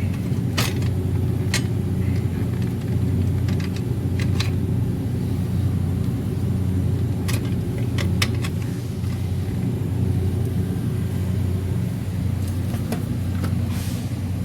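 Walk-in freezer condensing unit running steadily just after its power is switched back on: a steady low hum with a few sharp clicks scattered through it.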